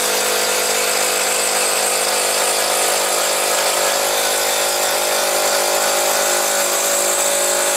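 Mollar CIDR12150U 12-volt brushed cordless impact driver hammering steadily under load as it drives a long 8 cm screw, with no slipping, then cutting off suddenly at the end.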